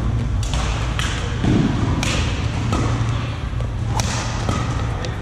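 Badminton rally: rackets striking a shuttlecock with sharp cracks, about five in all at roughly one a second, over a steady low hum.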